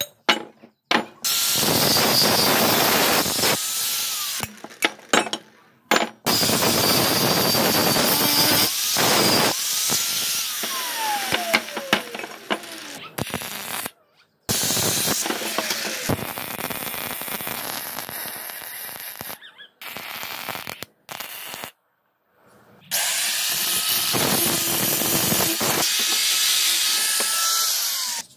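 Angle grinder grinding steel square tubing in several long bursts, its whine falling each time the disc spins down. A stretch of arc-welding crackle comes in the middle.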